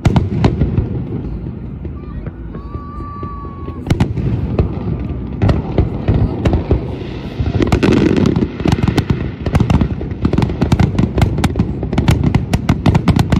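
Aerial firework shells bursting: sharp bangs spaced out at first, with a brief whistle about three seconds in, then from about eight seconds in a rapid, continuous barrage of bangs and crackle.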